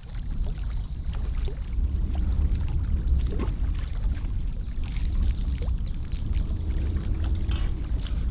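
Wind rumbling on the microphone, with small lake waves lapping and splashing against the shoreline rock.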